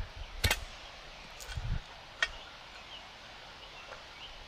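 A few short, sharp clicks and a dull low thump about one and a half seconds in, over a faint steady background.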